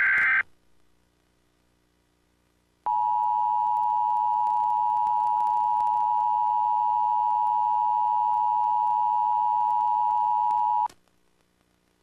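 Emergency Alert System test signals. The end of a screeching digital SAME header data burst cuts off about half a second in. After a short pause, the EAS attention signal sounds: a steady two-tone electronic beep near 1 kHz, held for about eight seconds before it stops abruptly.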